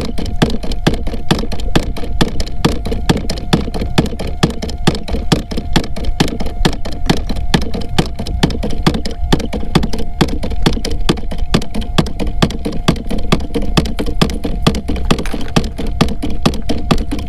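Homemade scrap-aluminum fish thumper running, knocking in a rapid, even rhythm of about four knocks a second over a steady motor hum. It is the kind of thumping used to draw schools of white bass in around a boat.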